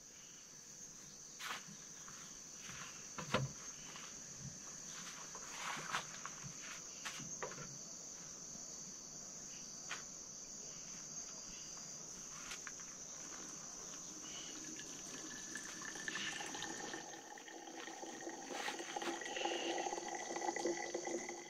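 A steady, high-pitched chorus of forest insects, with scattered clinks and knocks of a metal cooking pot and utensils. Near the end, hot coffee is poured from the pot through a cloth coffee strainer into a thermos, and a steady ringing tone rises from the filling flask.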